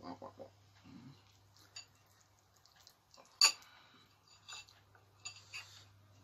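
A few sharp clicks and clinks as a beef-foot bone and a spoon knock against a ceramic soup bowl while the meat is pulled apart by hand; the loudest click comes about three and a half seconds in. A steady low hum runs underneath.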